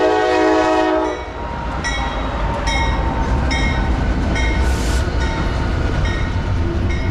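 Norfolk Southern diesel locomotives, GE AC44C6M 4085 leading and SD70ACe 1151 trailing, passing slowly: the lead unit's air horn chord ends about a second in. The diesel engines then rumble low while the locomotive bell rings about once every 0.8 s, with a brief hiss about halfway through.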